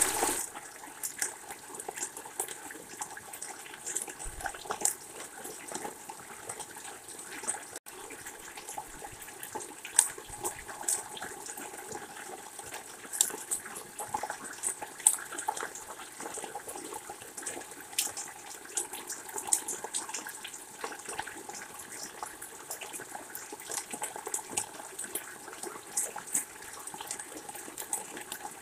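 Steady rain falling, with many irregular sharp ticks.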